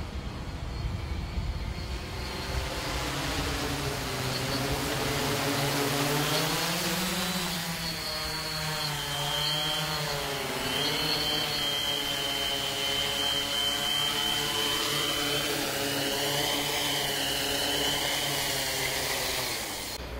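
Cinestar 8 octocopter's eight electric motors and 14-inch propellers running as it descends, the pitch of the hum rising and falling slowly, with a high whine over it.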